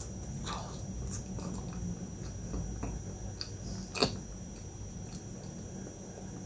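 Close-up chewing of a bite of pastry, with many small mouth clicks and one sharper click about four seconds in.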